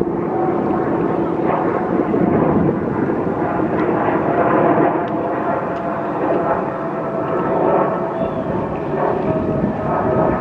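A Boeing 777-300ER's twin GE90-115B turbofans at takeoff power as the jet climbs out: a loud, steady rumble with a crackle and a faint hum running through it.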